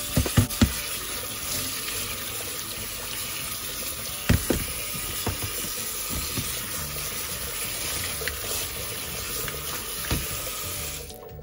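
Tap water running onto cauliflower florets in a plastic colander in a steel sink, with a few sharp knocks as the colander is handled. The water cuts off near the end.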